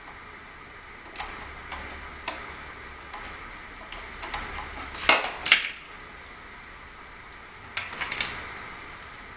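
Metal tools and air-rifle parts clinking and knocking during disassembly: scattered light clicks, a louder ringing clatter about halfway through, and a quick run of clinks near the end.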